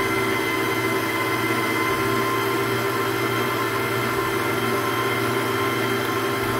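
Electric stand mixer running steadily at one speed, its beater turning through cake batter in a stainless steel bowl.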